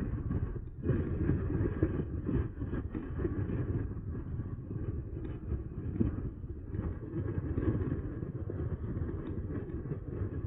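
Riding noise from an electric bike on the move: wind buffeting the microphone and tyres rumbling over the path make a low, uneven rumble with irregular surges.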